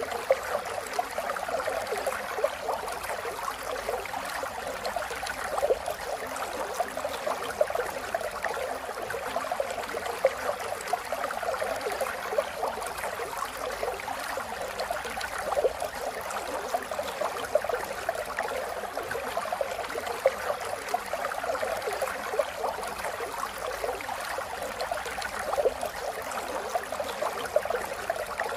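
Steady rain falling: a dense, even patter of drops with occasional louder single drops.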